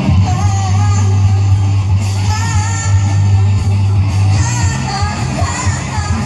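Live rock band playing, with a steady bass line and guitar under a wavering sung or lead melody.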